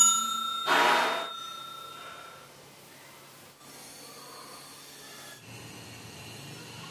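Notification-bell chime sound effect of a subscribe animation. A struck chime rings out at the start, then a brighter jingle about a second in rings on and fades by about two and a half seconds, leaving faint background noise.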